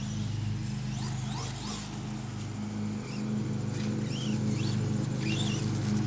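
Electric motor of a Redcat Volcano EPX Pro 1/10 RC monster truck on a 3S LiPo, whining up and down in short bursts as the throttle is blipped, while the truck runs across grass. A steady low hum with a pulsing beat runs underneath.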